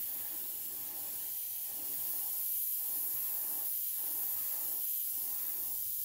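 Airbrush spraying blue paint onto a crankbait: a steady hiss of air and paint from the nozzle.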